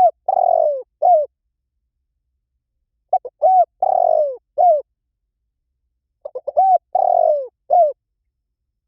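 Spotted dove calling: a cooing phrase of a couple of short notes, a longer drawn-out coo and a closing note, repeated about every three seconds, with dead silence between phrases.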